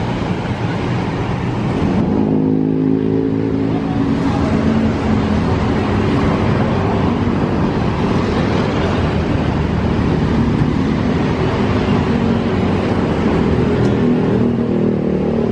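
Diesel engine of a Mercedes-Benz-chassis coach running steadily, its pitched drone swelling about two seconds in and again near the end.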